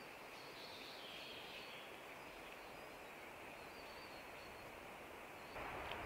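Quiet conifer-forest ambience: a steady soft hiss with a few faint, distant bird calls.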